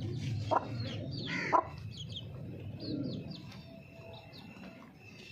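Baby chicks peeping in short high chirps while an Aseel mother hen clucks low, with two louder, sharper calls about half a second and a second and a half in. The sound grows quieter over the last two seconds.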